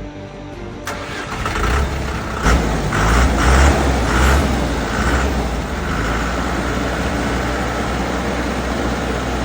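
A motor or engine starts up about a second in, surges a few times, then settles into a steady low running rumble.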